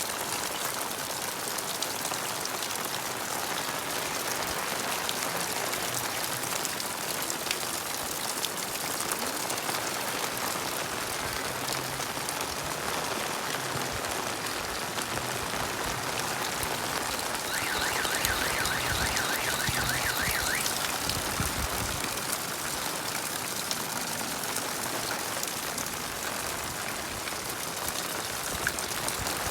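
Steady rain falling, an even hiss of drops. Between about 18 and 21 seconds a rapid, high pulsing sound rises above it for a few seconds.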